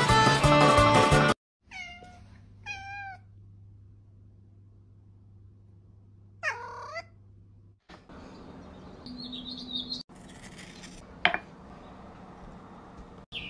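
Background music cuts off, then a tabby cat meows: two short meows about a second apart and, a few seconds later, one longer meow. Near the end there are faint handling noises and one sharp click.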